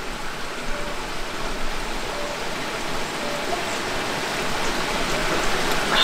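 Mountain valley stream rushing steadily.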